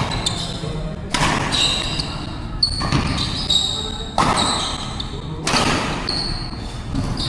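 Badminton rally: several sharp racket strikes on the shuttlecock about a second or so apart, ringing in a large indoor hall, with shoes squeaking on the court floor between shots.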